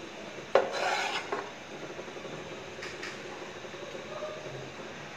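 A cooking utensil scraping against the side of an aluminium pot as a whole cooked chicken is lifted out of the masala: a sharp scrape about half a second in that lasts about a second, then a light clink near three seconds in.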